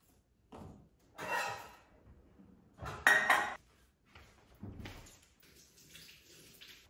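Kitchenware being set down on a countertop: a string of knocks and clatters, the loudest a ringing metal clank about three seconds in as a saucepan is put down.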